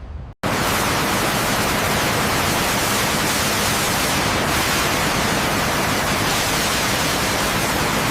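A loud, steady hiss of even noise like static, cutting in abruptly after a brief dropout about half a second in.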